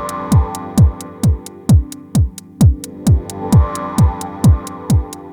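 Electronic breaks/electro track: a drum-machine kick that drops in pitch on every beat, about twice a second, with quick hi-hat ticks between the kicks and held synthesizer chords underneath.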